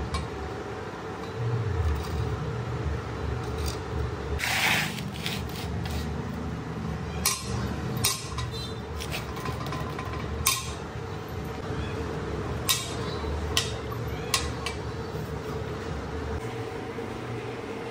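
Sharp metallic clinks and knocks, about six of them, as a bent flat-steel lever bolted to a steel bar is swung on its pivot bolt and handled, over a steady background hum.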